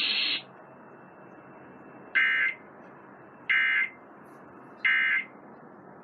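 Emergency Alert System end-of-message signal from a TV speaker: three short bursts of digital data tones, about 1.3 seconds apart, closing a Required Weekly Test.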